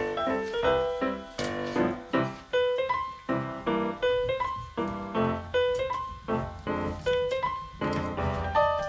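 Background piano music: a run of quick struck notes, each fading away, with a short melodic figure that keeps repeating.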